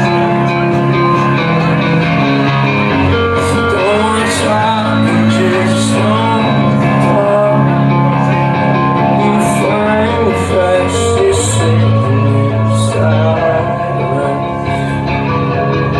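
Live rock band playing loud through a club PA: electric guitar over held bass notes, with cymbal hits every second or two.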